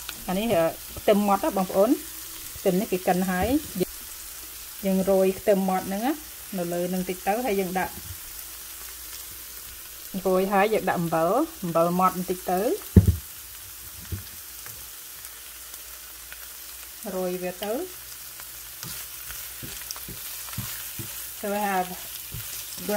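Maitake mushrooms sautéing in a nonstick frying pan: a steady sizzle with a spatula stirring. A person's voice comes and goes in several short stretches over it.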